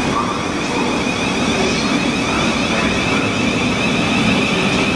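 Thameslink Class 700 electric multiple unit moving along the platform, its traction motors giving a steady high whine over the rumble of the wheels on the rails.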